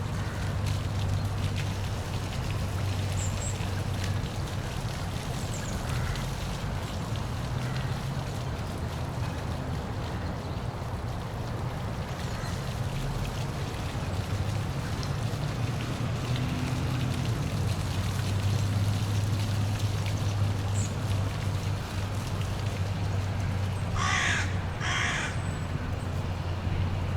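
Steady rush of falling water with a constant low hum underneath. Near the end a bird calls twice, short and loud.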